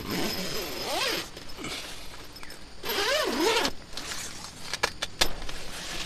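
A tent door zipper drawn open in two quick pulls, each a rasping sweep that wavers in pitch, followed by a few sharp clicks near the end.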